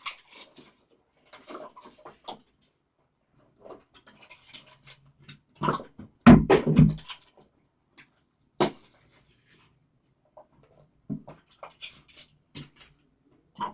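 Cardboard trading-card boxes and packaging being handled and opened: intermittent rustling, scraping and light taps, with two louder knocks about six and nine seconds in.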